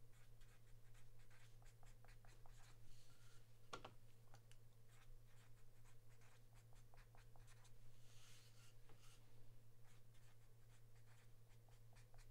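Faint scratching and light clicks from small hand work at a desk, over a steady low electrical hum.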